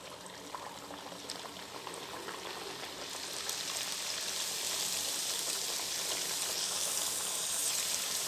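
Papdi (rounds of maida and semolina dough) deep-frying in hot oil in a kadhai: a steady bubbling sizzle with fine crackles, building over the first three seconds or so as the dough heats, then holding steady.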